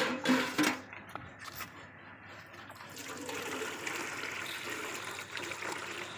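Perforated aluminium lid knocking against a metal pot a few times in the first two seconds, the loudest sounds here. Then water from a hose splashes steadily into an empty metal bucket from about three seconds in.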